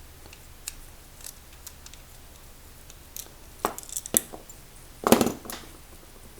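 Small metal padlock parts and tools clicking and clinking as they are handled, with scattered light clicks, a few sharper clinks near four seconds in and the loudest cluster of clatter about five seconds in.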